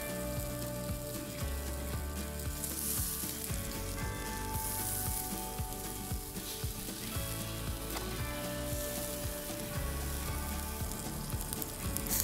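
Pork belly and shiso skewers sizzling on a wire grill over charcoal, the sizzle swelling twice a few seconds in, under background music.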